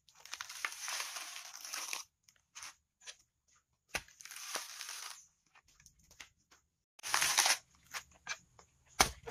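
Coconut husk tearing and cracking as the metal jaws of a lever-type coconut husker are driven in and prised apart, splitting the fibrous husk from the nut. Three long tearing bursts, with a sharp knock about four seconds in and another near the end.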